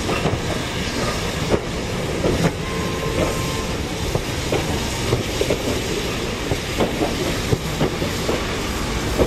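Passenger coaches of a steam-hauled train rolling past slowly, their wheels clicking and clacking unevenly over the rail joints above a steady rumble.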